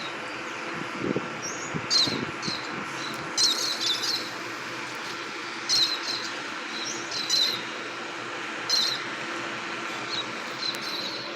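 Small cage birds chirping: short, high chirps every second or two over a steady background hiss, with a couple of soft low knocks in the first two seconds.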